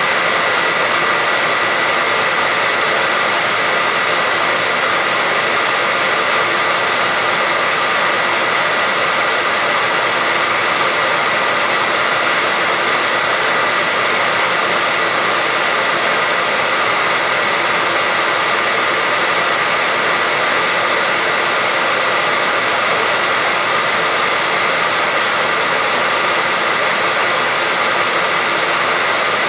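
Hair dryer running steadily, a constant loud rush of air with a high whine near 2 kHz over it.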